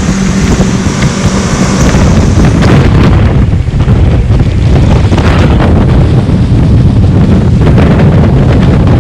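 Outboard motor of a small aluminium boat running steadily under way, with heavy wind buffeting the microphone.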